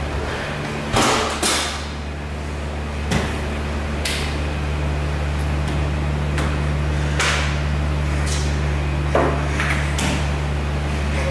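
Toilet stall doors being pushed and knocked on: a series of irregular knocks and bangs, about nine in all, over a steady low hum.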